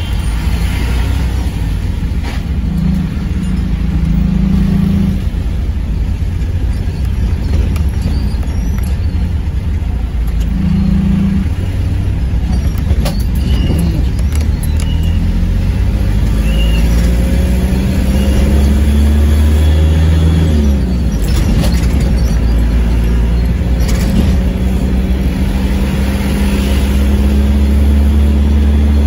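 Engine and road noise heard from inside a moving vehicle's cab: a loud, steady deep hum, the engine note climbing slowly through the second half as the vehicle gathers speed.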